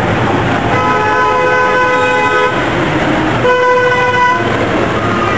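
Two long vehicle horn blasts over steady street traffic noise. The first lasts about a second and a half; the second, about a second later, is shorter.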